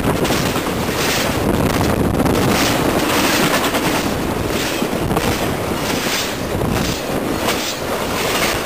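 Norfolk Southern double-stack intermodal train passing at speed close by: a loud, steady rush of wheels on rail and moving cars, pulsing in a rhythm a little under twice a second as the cars go by.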